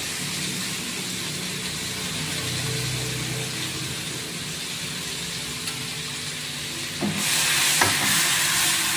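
Ground chili paste with garlic and shallots sizzling steadily in hot oil in a wok. About seven seconds in, a spatula starts stirring and scraping the pan, and the sizzle grows louder.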